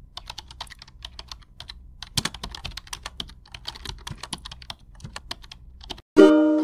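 Keyboard typing sound effect: a rapid, irregular run of key clicks. It stops about six seconds in, and music begins near the end.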